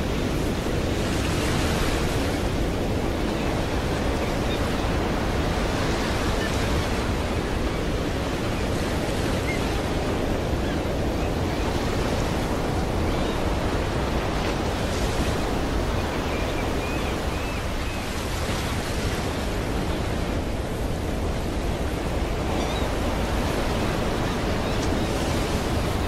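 Ocean surf: a steady wash of waves breaking on a beach, swelling into a louder hiss every few seconds as each wave breaks.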